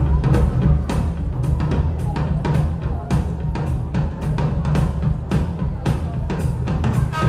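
Dance music with a driving drum-kit beat: kick and snare hits over a heavy bass line.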